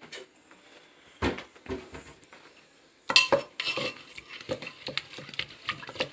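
Wooden pestle knocking and scraping in a clay mortar as the papaya-salad dressing is worked. A few separate dull knocks come first, then from about three seconds in a busier run of clicks, clinks and scrapes.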